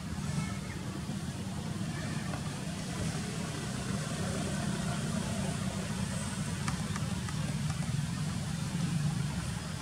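Steady low background rumble, with faint voices.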